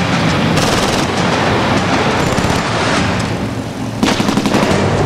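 Machine-gun fire in repeated rapid bursts, over a steady low rumble. The shooting eases briefly and starts again about four seconds in.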